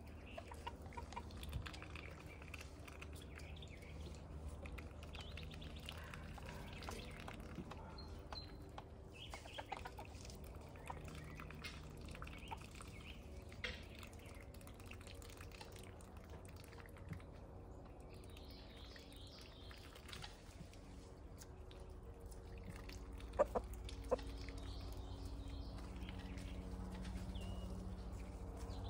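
Poultry clucking now and then, with scattered bird chirps over a faint steady low hum. Two sharp clicks come about two-thirds of the way through, and the hum grows a little louder near the end.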